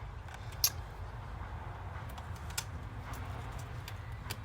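Small clicks and taps from handling the laptop's plastic case and screws, with one sharp click about half a second in and a few fainter ones later, over a steady low hum.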